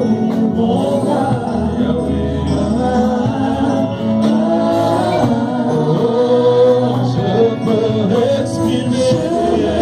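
Live gospel worship music: voices singing over keyboard accompaniment.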